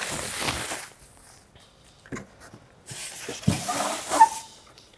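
Plastic packing wrap rustling as it is pulled out of a cardboard box. A couple of seconds later, molded pulp packaging inserts are scraped and bumped by hand, with a thump and a brief squeak near the end.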